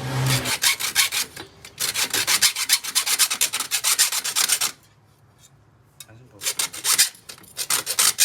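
Hand saw cutting through a small metal tube: rapid back-and-forth rasping strokes, broken by a pause of about a second and a half a little past the middle before the sawing resumes.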